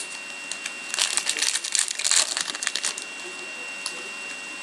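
Fleer Showcase hockey card pack's foil wrapper being torn open and crinkled: a dense crackling burst from about one to three seconds in, then a couple of single light clicks.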